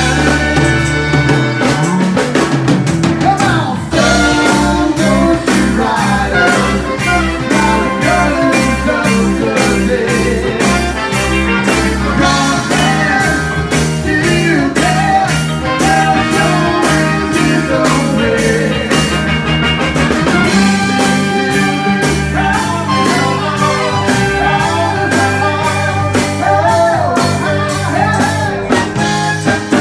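Live band playing horn-driven rock music: a trumpet over electric guitar, bass and a drum kit keeping a steady beat.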